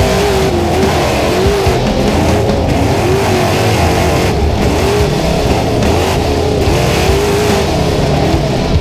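Trophy truck engine at racing speed, its revs rising and falling in quick swings as it drives hard over a dirt track, with rock music mixed underneath.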